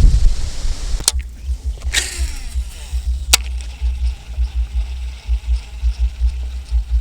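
A cast with a Daiwa Tatula SV TW 103 baitcasting reel: a sharp click, then the whoosh of the cast with a falling whine as the spool spins and slows, and another sharp click about a second later. Low wind rumble on the microphone throughout.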